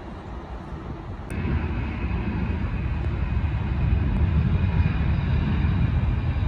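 Twin-engine jet airliner on its takeoff roll at takeoff power: a steady low rumble with a thin high whine that slowly grows louder. A little over a second in it abruptly replaces a fainter distant rumble of a plane already climbing out.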